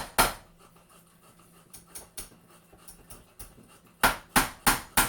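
Hammer driving a nail into a wooden frame: one blow just after the start, a few light taps in the middle, then a quick even run of strikes, about three a second, from about four seconds in.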